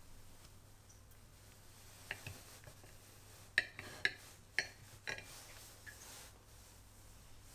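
Metal knife and fork clinking against a ceramic plate while cutting through a stack of pancakes: a handful of sharp clicks, the loudest four about half a second apart in the middle, over a faint steady hum.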